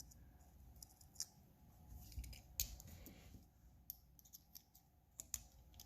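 Faint, irregular light clicks and taps of small metal parts: small screws and a screwdriver being handled on a Bestech Texel folding knife during reassembly.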